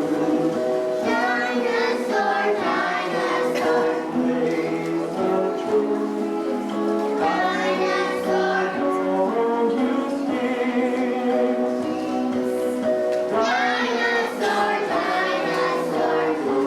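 Voices singing a song from a stage play, with held notes over musical accompaniment.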